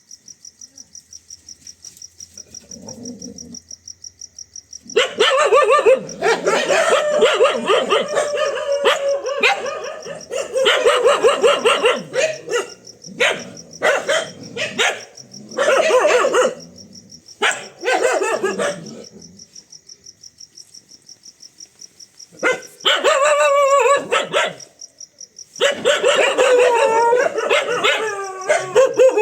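A dog barking loudly in long runs of rapid barks, stopping for a few seconds about two-thirds through and then starting again: alarm barking at a fake tiger. Crickets chirp steadily behind it.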